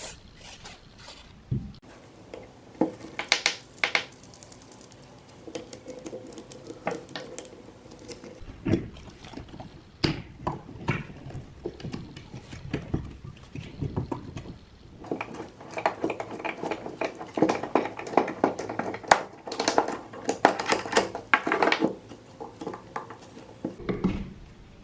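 Irregular metallic clinks, taps and knocks of hand tools and small metal parts being handled, busiest in a run of rapid clattering after the middle.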